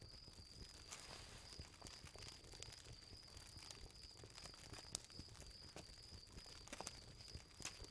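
Near silence: a faint background hiss with a thin, steady high whine and a few soft ticks.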